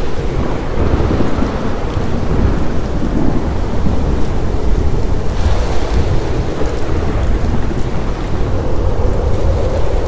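Thunderstorm: steady heavy rain with low thunder rumbling continuously underneath. The rain's hiss briefly brightens about five and a half seconds in.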